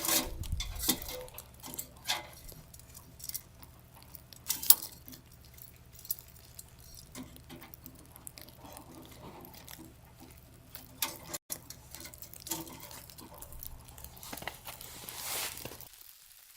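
Scattered light clicks, taps and knocks at an irregular pace, one sharp knock about four and a half seconds in.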